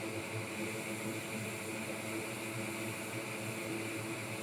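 Steady whir of a workbench fume extractor and air filter running, their fans blowing.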